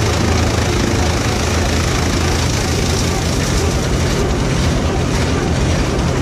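1941 Farmall H's four-cylinder engine running steadily under load, driving a Gehl corn chopper through the shaft, with the chopper's blower rushing as chopped corn stalks are blown out of the spout.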